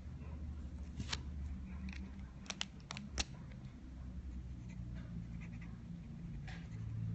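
Sharp clicks of fine-tip ink pens being handled as one pen is swapped for another: one click about a second in, then four close together around two and a half to three seconds in. A steady low hum runs underneath.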